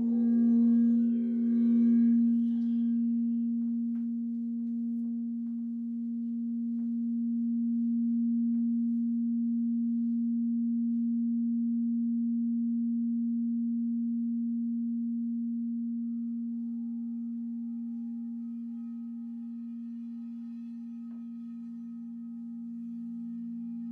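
Crystal singing bowls ringing: one bowl's steady, pure low tone carries throughout, with a wavering shimmer of higher overtones over the first couple of seconds. A second, lower bowl tone swells in near the end.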